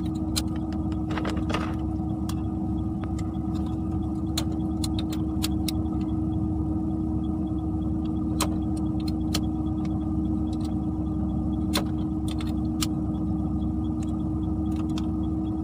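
Perodua Kenari's three-cylinder engine idling steadily, heard as a constant low hum with a steady tone, with scattered sharp clicks from small parts being handled.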